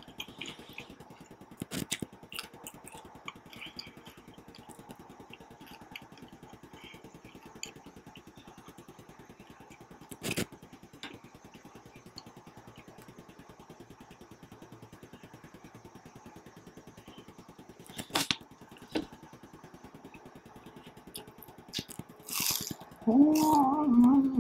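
Quiet eating of spicy dumplings: soft chewing with a few sharp clicks spread through. Near the end comes a short sniff, then a brief wavering hummed "mm" from the eater, the loudest sound here.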